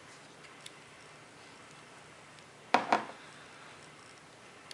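Plastic parts of a turn signal switch module being handled as its top cover is taken off: a faint click, then two sharp plastic clicks close together a little under three seconds in.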